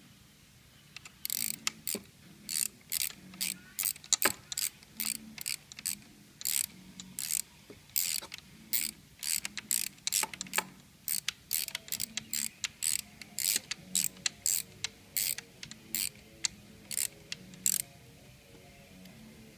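Hand ratchet wrench clicking in short bursts as it is swung back and forth to tighten a nut on a bracket mount, about two bursts a second, stopping shortly before the end.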